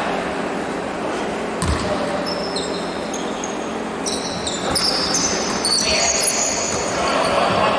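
A basketball bouncing once with a low thud on the court floor. Then sneakers squeak repeatedly in short high chirps as players move, over voices echoing in a large hall.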